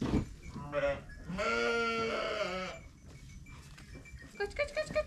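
Sheep bleating: a short bleat, then a long wavering bleat of over a second. Near the end comes a quick run of short, high calls.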